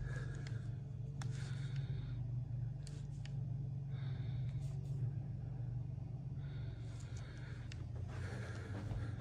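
Indoor room tone with a steady low hum, several soft breaths from the person filming, and a few light handling clicks.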